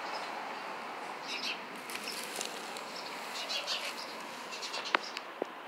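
Birds chirping in short bursts over a steady outdoor hiss, with a few sharp clicks near the end.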